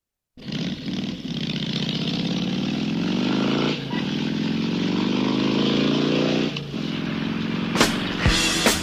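Formula 1 car engine accelerating hard, its pitch climbing steadily, dropping at an upshift about four seconds in and climbing again, with another shift near the seven-second mark. Sharp drum hits come in near the end.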